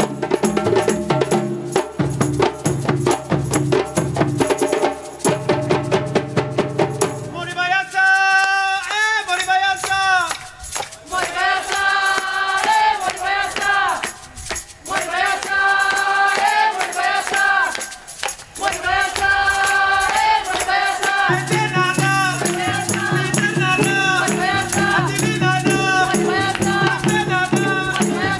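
Live drum-circle ensemble playing: drums and shakers in a dense rhythm, then the low drums drop out and a voice sings over the rattling shakers. About three quarters of the way in the low drums come back under the singing.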